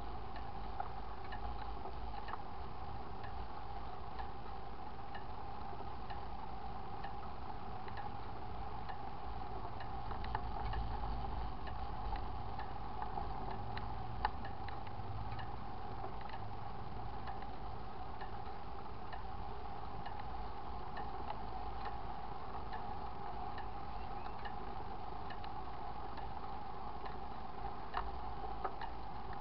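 Bicycle being ridden: a light, regular ticking about one to two times a second over a steady hum and a low wind-and-road rumble.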